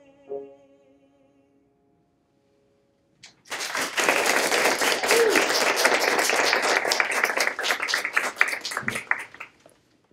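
The last held sung note and a piano chord fade away at the end of a song. After about three seconds of near silence, an audience breaks into applause, which lasts about six seconds and dies away near the end.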